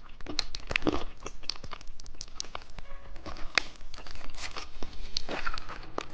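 Plastic candy wrapper being torn open and crinkled: a run of irregular crackles and rustles.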